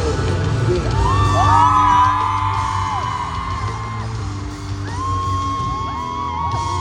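Live pop music over a concert sound system with a steady heavy bass. A crowd of fans is screaming and whooping over it, loudest about a second in and again near the end.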